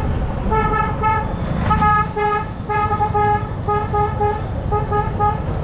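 A vehicle horn beeping in quick short toots, about three a second, with a brief pause near the start, over the low rumble of the motorcycle ride and street traffic.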